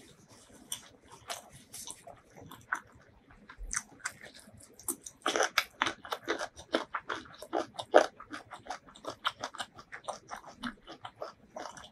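Close-miked mouth sounds of a person chewing a mouthful of spicy duck curry and rice: many short wet clicks and crackles, sparse at first and coming much thicker from about five seconds in.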